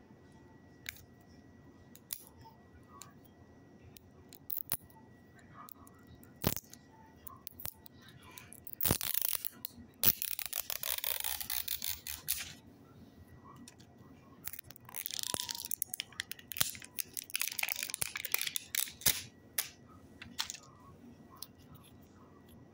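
Close handling noise: scattered clicks and taps, with two spells of rustling, scratchy noise of a few seconds each, about nine seconds in and again about fifteen seconds in.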